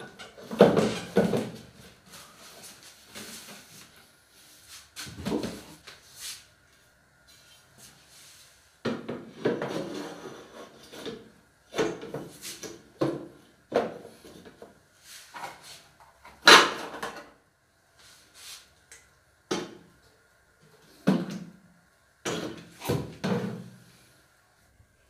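Irregular knocks and clatters of bottles and items being handled and set into a wall-mounted bathroom cabinet with glass shelves, with a faint steady high tone in the background.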